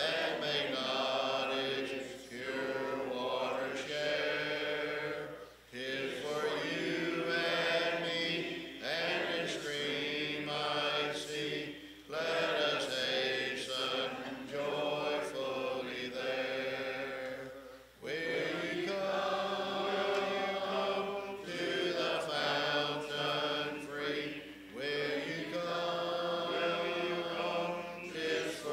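Congregation singing a hymn unaccompanied, a cappella, in long phrases of about six seconds with short breaks for breath between the lines.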